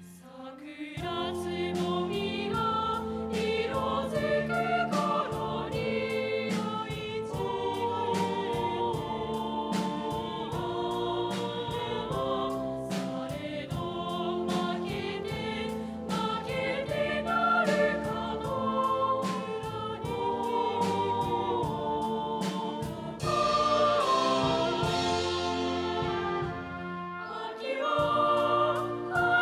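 Background music: a choir singing over an instrumental accompaniment with a steady beat.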